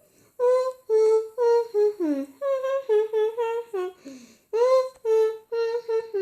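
A high-pitched voice humming a tune in short, separate notes, about two or three a second, with a brief break about four seconds in.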